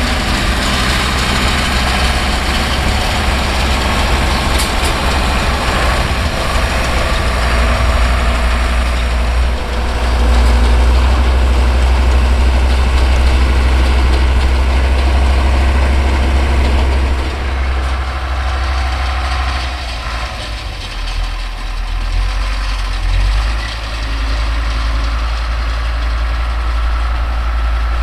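Older Deutz tractor's diesel engine running steadily while pulling and driving a New Holland Cropcutter 644 round baler. The engine gets louder for several seconds near the middle, then eases off and wavers.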